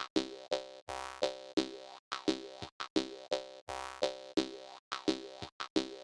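Jaw harp music: the jaw harp is plucked in a steady dance rhythm, about three notes a second, each note ringing with a stack of overtones and cut by brief silent gaps.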